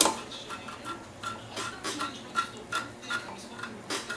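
Long screwdriver tightening spring-loaded stainless steel screws that hold a DLP chip's heat sink, with a run of small ticks about three to four a second and a sharper click at the start and again near the end.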